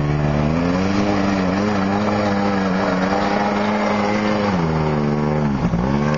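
Small sport quad's engine revving under load as it climbs a muddy, rutted slope: the revs rise about half a second in and hold high, then fall away, dip sharply near the end and pick back up.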